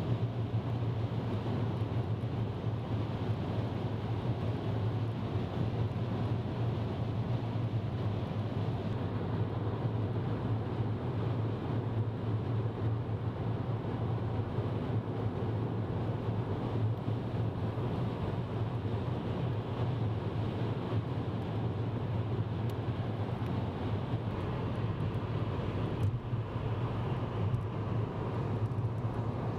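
Steady road and engine noise inside a car cruising at highway speed, a constant low drone under a rush of tyre noise.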